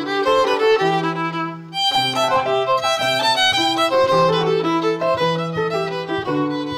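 Solo violin playing an Irish jig tune with piano accompaniment underneath, the piano holding low bass notes. The music breaks off briefly just before two seconds in, then carries on.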